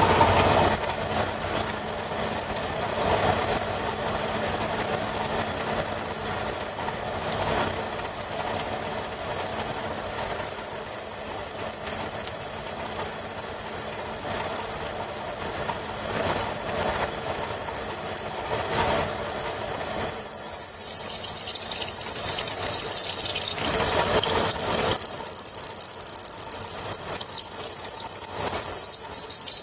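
Metal-cutting machine tool running with its cutter working into metal, a high-pitched squeal from the cut coming in about nine seconds in and shifting in pitch about twenty seconds in.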